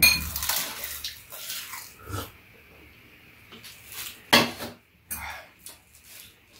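Eating noises from people eating stir-fried webfoot octopus with rice: a few short, noisy slurps and bites, loudest right at the start and again about four and five seconds in.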